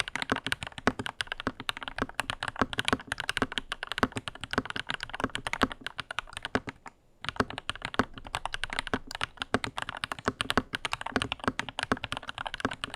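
Lychee G80 mechanical keyboard being typed on: a fast, continuous run of keystroke clacks with a brief pause about seven seconds in.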